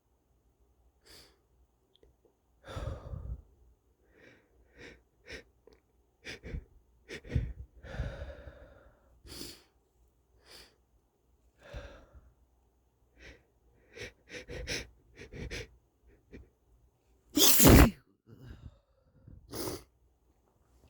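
A man sneezing, stuffy and wet through a congested nose, with short breaths between the sneezes. The loudest sneeze comes near the end.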